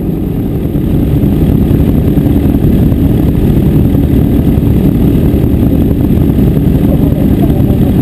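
Sport motorcycle engines idling close by, a loud, steady low sound with no revving.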